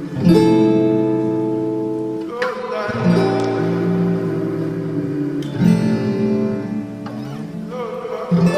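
Music: an acoustic guitar strumming sustained chords, with a new chord struck every few seconds.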